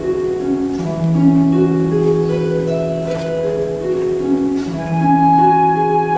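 Concert harp playing flowing broken-chord figures over a held low bass note.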